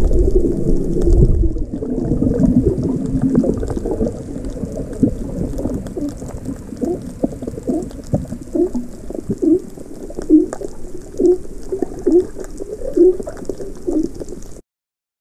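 Muffled underwater sound picked up by a camera in its housing while snorkeling: a low water rumble, then from about six seconds a run of short low hoots at roughly one a second. The sound cuts off suddenly near the end.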